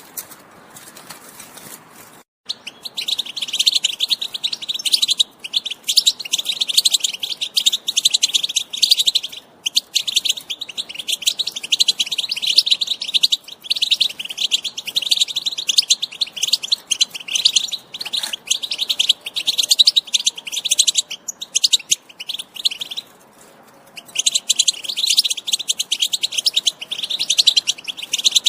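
European goldfinch (saka) singing: long runs of rapid, high twittering that start about two seconds in, with a few short breaks.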